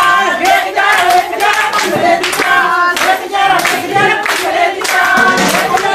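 A group singing Punjabi boliyan, the short folk couplets of gidha, with hand clapping keeping the beat throughout.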